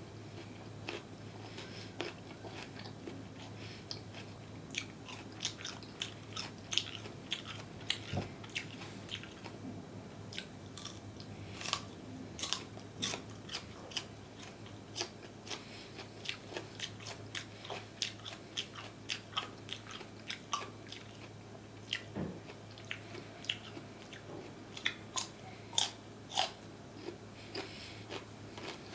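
Close-miked biting and chewing of crunchy food: a steady run of sharp, irregular crunches and wet mouth clicks, several a second, over a faint steady low hum.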